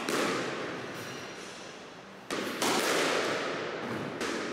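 Squash racket striking the ball and the ball smacking against the court wall: two sharp cracks close together about halfway through, each ringing on in the court's long echo.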